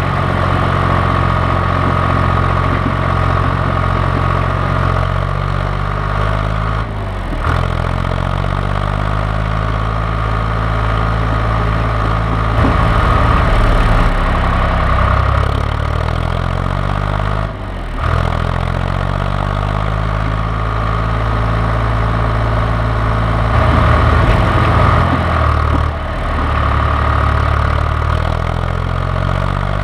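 John Deere 1130 tractor's diesel engine running, its speed rising and falling slowly, with two brief dips, about a quarter and about three-fifths of the way through, and a steady high whine over the engine note.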